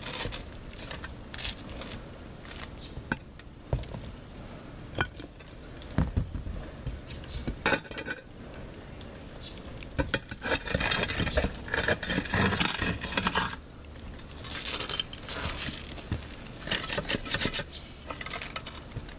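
Concrete roof tiles being worked loose and lifted: scraping and clinking of tile on tile, with scattered sharp knocks from a metal tool, busiest a little past the middle.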